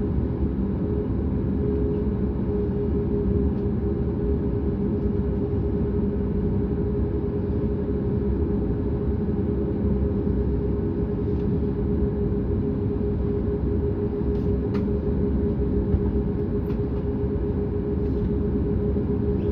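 Boeing 737-8200's CFM LEAP-1B engine running, heard inside the cabin: a steady low rumble with a constant hum that holds its pitch. A few faint clicks come late on.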